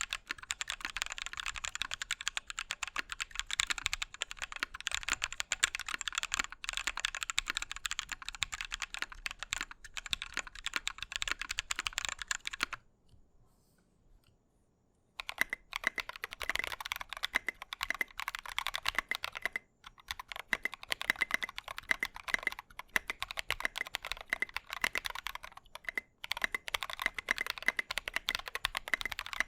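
Continuous fast typing on a 60% mechanical keyboard with Drop Holy Panda v2 tactile switches in an aluminium plate, a dense run of keystroke clacks. It stops for about two seconds just under halfway through, then resumes with a slightly different tone.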